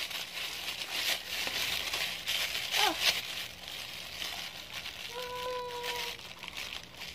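Clear plastic packaging crinkling as new school shoes are unwrapped and handled, busiest in the first three seconds or so.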